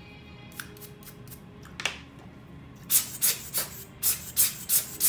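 Rubber bulb air blower squeezed again and again, a quick series of about eight hissing puffs three or four a second, blowing dust off a Leica 50mm Summicron lens; a sharp click comes a second or so before.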